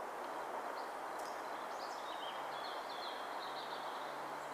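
Woodland ambience: a steady background rush with faint, high bird calls chirping on and off from about a second in.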